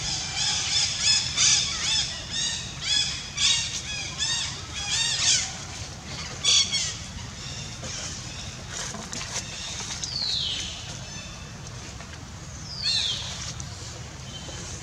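High-pitched animal calls: a rapid series of short, arching chirps for about the first five seconds, then two single falling calls, near ten and thirteen seconds in.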